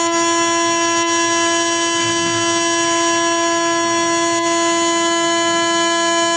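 High-speed spindle of a small CNC milling machine whining steadily as a fine end mill cuts into a brass plate: one steady high-pitched tone with overtones, with a couple of faint ticks.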